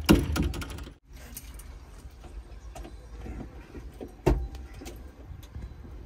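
Backhoe loader's glass cab door banging shut at the start, then scattered clicks and one sharp knock about four seconds in from inside the cab.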